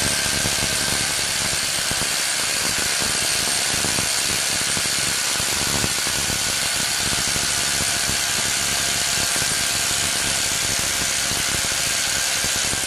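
Cordless 18 V brushless impact wrench hammering steadily as it tightens a bolt under load, cutting off suddenly at the end.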